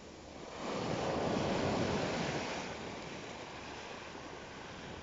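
Sea surf on a pebble beach: a small wave breaks and washes up over the shingle, swelling about a second in and then slowly ebbing back.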